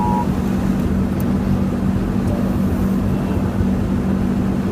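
Car engine running, heard from inside the cabin: a steady low hum and rumble.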